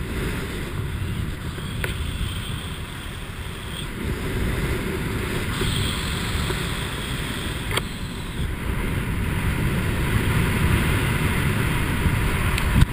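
Wind rushing over the microphone during descent under an open parachute canopy, a steady low buffeting, with a faint click twice.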